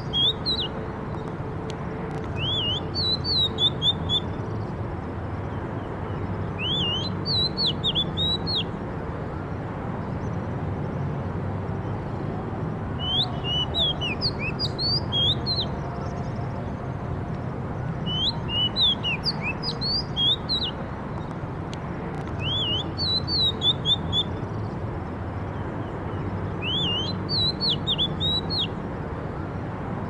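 Oriental magpie-robin singing: about seven short phrases of quick whistled notes sliding up and down, a few seconds apart, over a steady low background hum.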